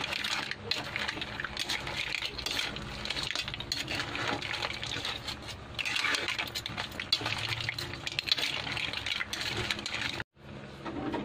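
Metal spatula stirring crabs, mussels and corn cobs in a wok of broth: shells clinking and rattling against the metal pan, with the liquid sloshing. The sound cuts out briefly near the end.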